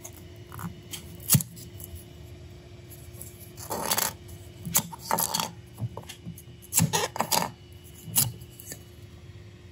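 3D-printed plastic parts handled on a 3D printer's build plate: a sharp click about a second in, then several short bouts of plastic clacking and scraping against the plate and each other.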